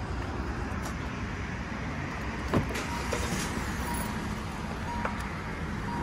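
A car, heard from inside the cabin: a steady low rumble, a sharp click about two and a half seconds in, then a faint warning chime that beeps about once a second.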